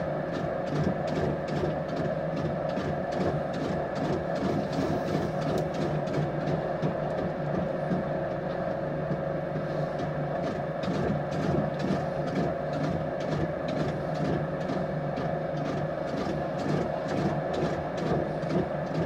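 Potter's wheel running with a steady hum while a clay plate is thrown on it, with a quick, even ticking throughout.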